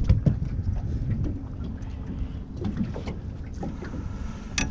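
Wind on the microphone and water lapping against the hull of a small fishing boat, a steady low rumble, with scattered light clicks and knocks of fishing pliers and a landing net being handled on the deck; one louder knock near the start and another near the end.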